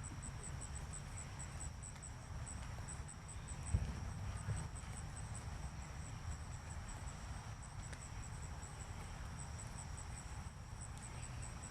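Insects chirping steadily, a regular run of short high-pitched chirps several times a second over a steady high drone, with a low rumble underneath and a single soft thump about four seconds in.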